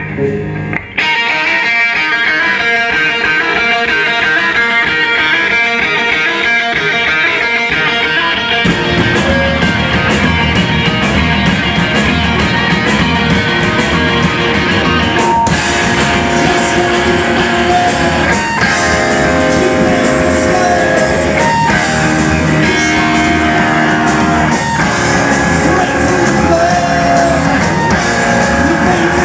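Rock band playing live with electric guitars and drums. The guitars start alone, the full band with bass and drums comes in about nine seconds in, and it grows fuller again around fifteen seconds.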